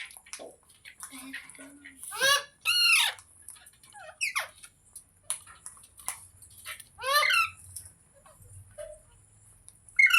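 Indian green parrot calling: four loud, harsh squawks spread over the stretch, with softer short chirps between them.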